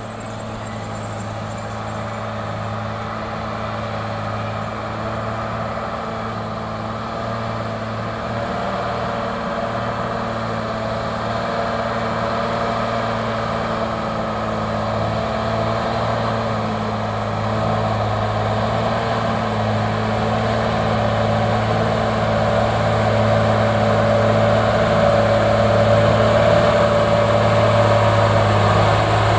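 Mercedes-Benz truck's diesel engine pulling a loaded flatbed semi-trailer up a steep climb, a steady engine drone that grows steadily louder as the truck approaches.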